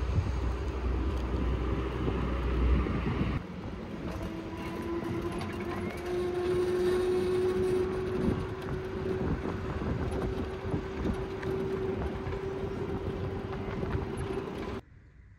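Wind buffeting the microphone during a cargo-bike ride, then, after an abrupt change, a steady mechanical hum with a droning tone that rises slightly and then holds, cutting off suddenly near the end.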